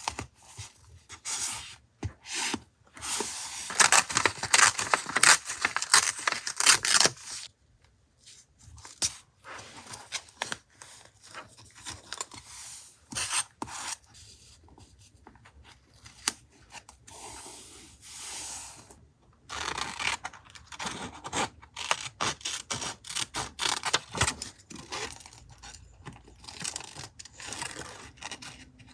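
Paper being torn, rubbed and scraped by hand in journal collage work, in irregular rustling bursts. There is a loud stretch a few seconds in and another in the second half, with scattered small clicks and rubs between.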